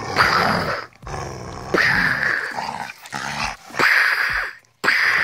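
Dog play-growling in four long, rough growls with short breaks between them.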